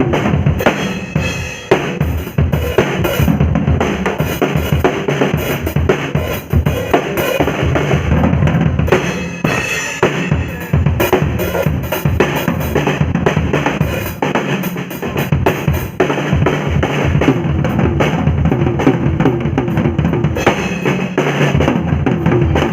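Drum kit played solo, a dense run of bass drum and snare hits with rimshots, without a break.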